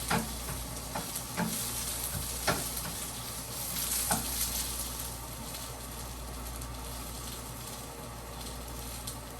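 Food sizzling in a frying pan, a steady hiss, with a few sharp clicks in the first four seconds.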